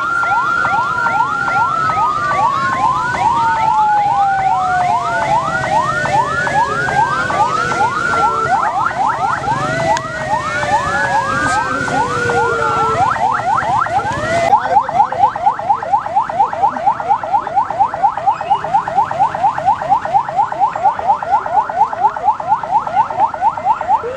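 Electronic vehicle sirens, from the ambulance and the light-bar patrol car escorting the procession, sounding together: a fast repeating yelp overlaid with slower falling wails. A little past halfway this changes abruptly to a steady pulsing tone, about four beats a second.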